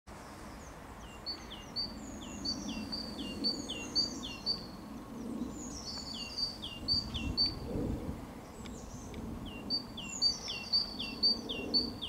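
Great tit singing its repeated two-note song, a higher note followed by a lower falling one, about two phrases a second in three bouts with short pauses between, over a faint low background rumble.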